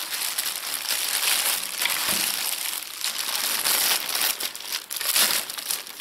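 Clear plastic bag wrapped around a handheld vacuum cleaner crinkling continuously as hands turn and handle it.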